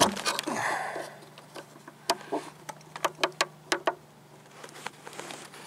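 Flat-blade screwdriver working at a GM battery cable clamp, its steel blade scraping and clicking against the metal as it pries up the clamp's small tab. A scrape at the start, then a run of sharp separate clicks over the first four seconds.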